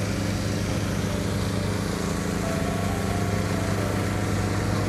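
Heavy demolition machinery running: an excavator's diesel engine holds a steady low drone over a constant hiss.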